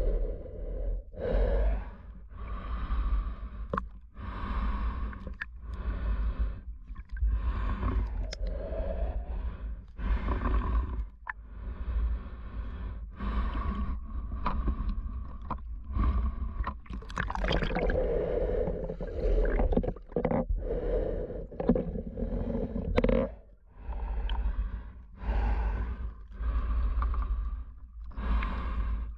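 Steady, rhythmic breathing through a Free Breath full-face snorkel mask, one breath about every second, over a low rumble of water moving against the camera.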